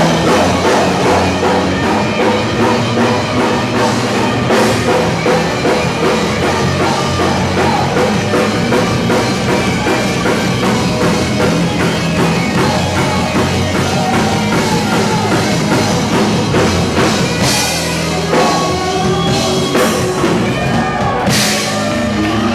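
Live worship rock band playing an instrumental passage on drum kit and electric guitar, with cymbal crashes about four seconds in and twice near the end.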